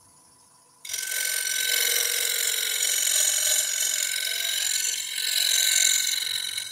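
Skew chisel making a light tidying cut into the corner at the foot of a wooden bowl spinning on a lathe: a steady, high ringing hiss that starts about a second in and cuts off suddenly near the end.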